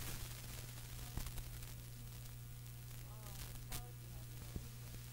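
Steady low mains hum and tape hiss from an old reel-to-reel recording, with faint clicks about a second in and again near four seconds, and a faint snatch of voice around three seconds in.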